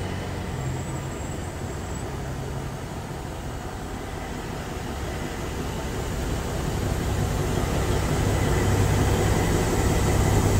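Peterbilt 389 semi truck's diesel engine running with a steady low hum as the rig rolls slowly, growing louder over the last few seconds.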